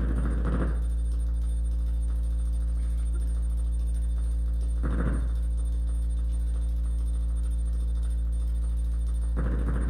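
A steady low hum, with a short rushing noise about every four and a half seconds.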